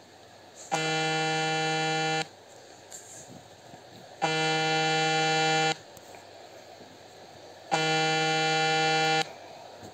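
A low, steady buzzing tone sounds three times, each about a second and a half long, repeating every three and a half seconds like an alarm or ringing signal.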